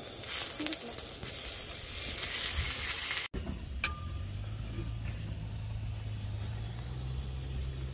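Food sizzling loudly on a hot grill pan for about three seconds; it breaks off suddenly and a steady low hum follows.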